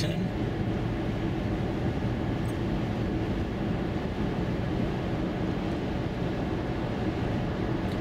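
Steady in-cabin road and tyre noise with engine hum from a 2014 Kia Forte5 with a 2.0 GDI engine, cruising along a highway.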